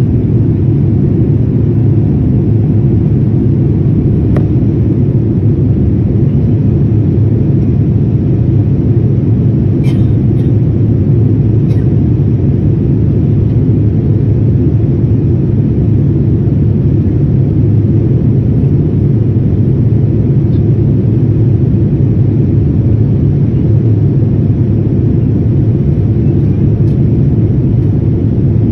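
Steady low rumble inside a jet airliner's cabin in flight: the engines and the rush of air past the fuselage, heard from a window seat. A few faint clicks about ten and twelve seconds in.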